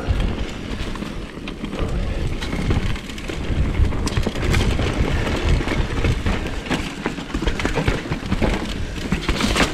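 Mountain bike rolling fast down rocky singletrack: wind rushing over the camera microphone, with the tyres and frame rattling and knocking over stones throughout.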